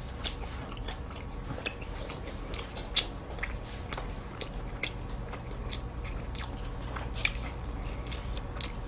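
Close-miked chewing of a flaky, syrup-soaked butterfly pie (nabi pie) pastry, giving scattered, irregular soft crackles. The pastry has been warmed in the microwave, which has softened it, so there is little crunch.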